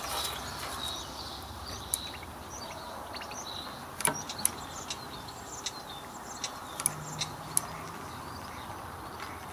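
A few sharp light clicks and taps as a motorcycle brake caliper is handled and worked in the hands, the loudest pair about four seconds in, with faint birdsong behind.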